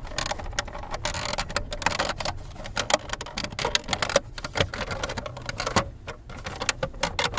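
Plastic steering column cover being worked at its snap clips by hand, giving off irregular clicks, taps and rattles.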